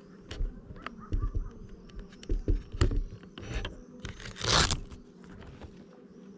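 Several knocks and thumps and a brief loud rustling scrape about four and a half seconds in, close to a GoPro on an FPV drone resting on the ground, over a steady low hum.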